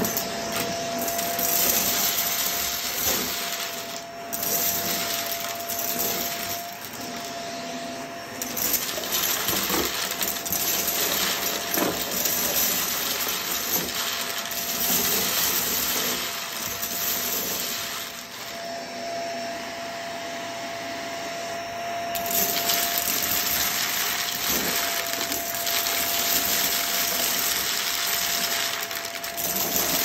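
Shark vacuum cleaner running over carpet: a steady motor whine under dense hiss, with constant crackling and rattling as crunchy debris is sucked up.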